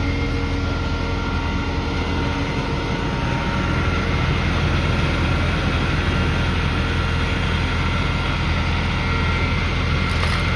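Heavy engine idling: a steady low hum with a few faint, steady higher whines.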